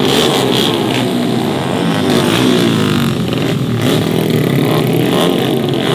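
Several tuned 150 cc four-stroke underbone race motorcycles running at high revs, their overlapping engine notes rising and falling as they accelerate and shift.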